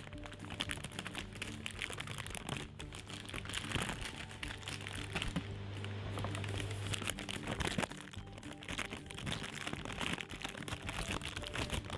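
Baking parchment crinkling and rustling under gloved hands as baked ladyfinger biscuits are picked up off it, with many quick crackles throughout.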